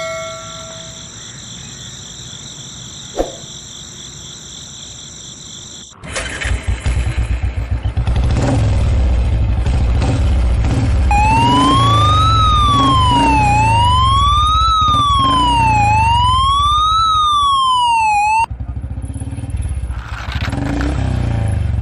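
Battery-operated toy police motorcycle running: a loud, pulsing rattle of its motor and plastic wheels starts about six seconds in. A few seconds later an electronic toy siren wails up and down, three rises and falls, then cuts off suddenly while the rattle goes on.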